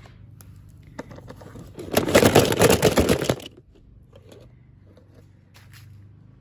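Packaging being handled for an unboxing: a light click about a second in, then a loud burst of crinkling and rustling lasting about a second and a half, then soft handling noises.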